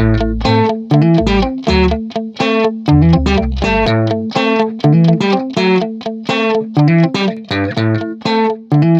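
Background music: a fast, bright plucked guitar melody, several notes a second, over a bass line that drops out about four seconds in.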